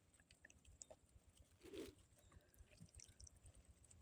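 Near silence: faint scattered ticks, with one soft rustle a little before two seconds in.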